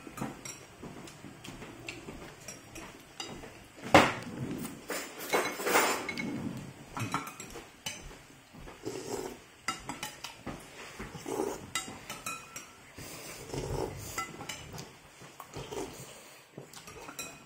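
A metal spoon and chopsticks clinking and scraping against a ceramic bowl of noodle soup, with a sharp clink about four seconds in, mixed with softer mouth sounds of eating noodles.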